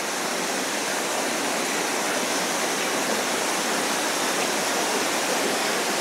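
Waterfall pouring over rocks: a steady, even rush of falling water.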